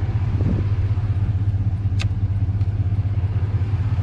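Motorcycle engine idling steadily, a low even rumble, with a single sharp click about two seconds in.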